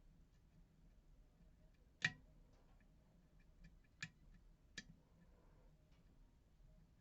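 Lock picking in an MTL Interactive pin-tumbler lock: faint metallic ticks of the pick working the pins, with three sharp clicks, the loudest about two seconds in and two more close together near the middle.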